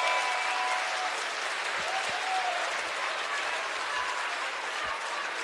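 Large concert audience applauding, a steady even clapping.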